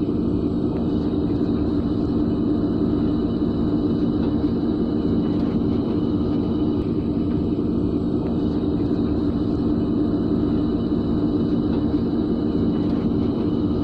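Diesel locomotive engine running, a steady low rumble.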